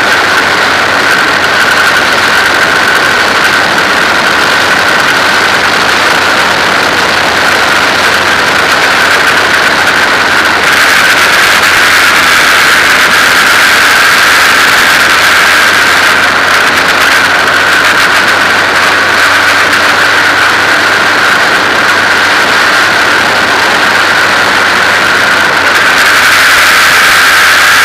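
Formula 2000 race car engine running, heard loud through the onboard camera as a steady drone with a constant high whine. It gets louder about eleven seconds in and again near the end.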